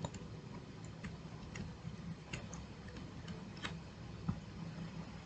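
Faint, irregular clicks of a computer mouse's scroll wheel, about half a dozen, as a dropdown list is scrolled, over a low steady background hum.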